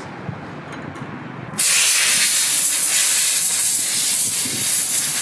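A pressurised spray nozzle hissing in one long, loud blast that starts suddenly about one and a half seconds in and runs to the end.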